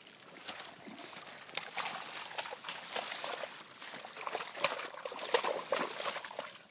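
A dog wallowing in a shallow muddy stream, with irregular splashing and sloshing of water and mud.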